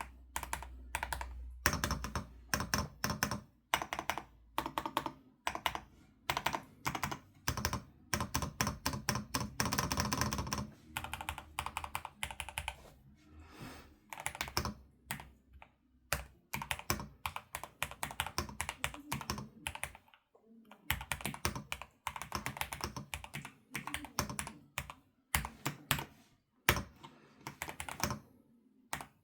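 Corsair Vanguard 96 keyboard being typed on for a sound test: runs of rapid key clicks, densest about a third of the way in, with a brief pause about two-thirds through.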